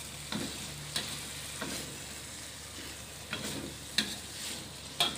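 Metal spatula scraping and knocking against a wok while stir-frying potatoes, petai beans and shrimp in a thick sambal sauce, with a steady low sizzle underneath. About six sharp clinks at irregular intervals, the loudest near the end.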